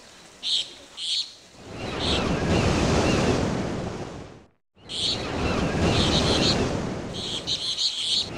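Steady rushing noise, like wind on a microphone, with short high chirps recurring over it. It cuts out briefly about halfway through.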